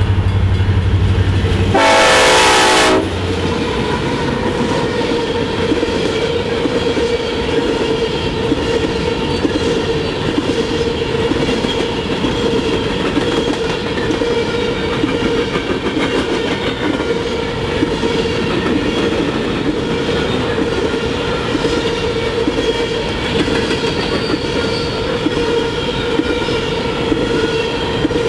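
A locomotive horn sounds one short loud blast about two seconds in, over the low rumble of the train. Then empty steel coal hopper cars roll steadily past, with wheel-and-rail rumble, faint clicking and a steady ringing tone running through it.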